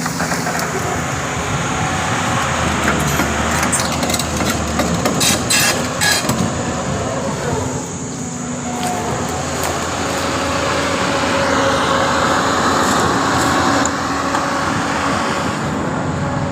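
Doosan 225 hydraulic excavator's diesel engine running steadily, with a cluster of sharp cracks about four to six seconds in.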